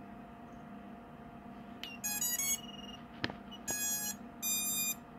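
Electronic speed controllers beeping their power-up tones through the brushless motors of an FPV quadcopter as its battery is connected: a quick rising run of notes about two seconds in, then a click, then two longer beeps. A steady low hum runs underneath.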